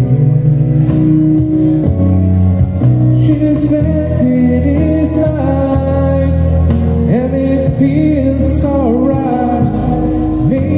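A man sings into a handheld microphone over a karaoke backing track; his amplified voice wavers over the steady music, most clearly from about four seconds in.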